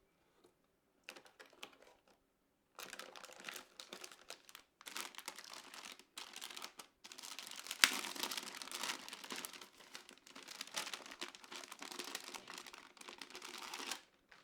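Packaging crinkling and rustling as it is handled, in irregular stretches with short pauses, with a single sharp snap about eight seconds in.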